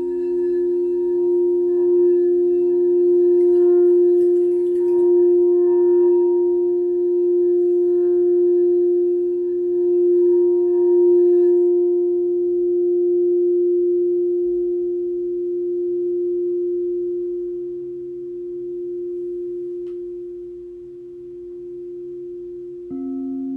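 Singing bowl ringing with a steady hum that swells and wavers, slowly fading over the second half. About a second before the end, a bowl is struck again and starts ringing on a lower note.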